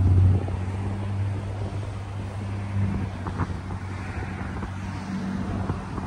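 Motor vehicle engine hum, loud at first and dropping sharply about half a second in, then continuing as a quieter steady hum.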